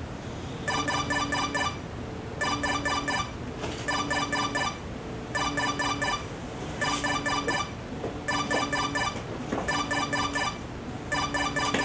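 Mobile phone ringing: an electronic trilling ring in short bursts of quick pulses, repeating about every one and a half seconds.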